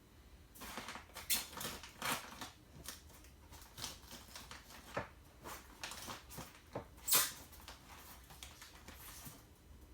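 Birds scrabbling and fluttering inside a wall: an irregular run of quick scratches and rustles, with a louder flurry about seven seconds in.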